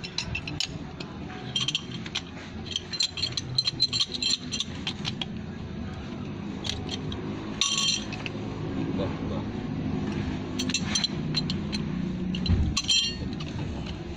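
Light metallic clinks and scrapes of a pipe wrench and metal fitting being handled on a water pipe. A quick run of clinks comes in the first few seconds, then scattered single clinks.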